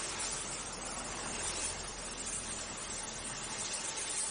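Welding on a metal tube frame: a steady, even hissing noise that runs without a break.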